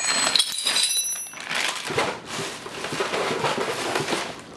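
Plastic parts bag crinkling as it is handled, then a longer rubbing and scraping from packing material being moved for about two and a half seconds, stopping near the end.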